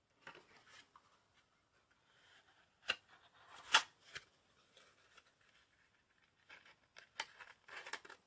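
A deck of playing cards being slid into its cardboard tuck box and the flap tucked shut: papery rustling and scraping of card stock, broken by sharp snaps and clicks. The loudest snap comes a little under four seconds in, with a quick cluster of clicks near the end.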